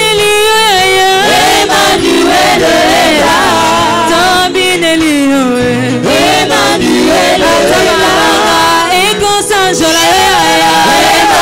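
A gospel worship song performed live: a choir of men and women singing together over electric bass and guitar.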